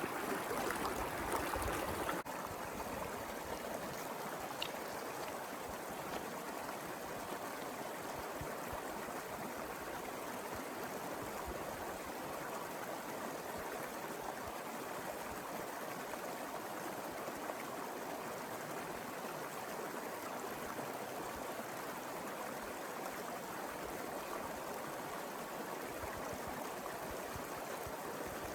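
Mountain river flowing over rocks, a steady rush of water. About two seconds in, it drops abruptly to a slightly quieter, even flow.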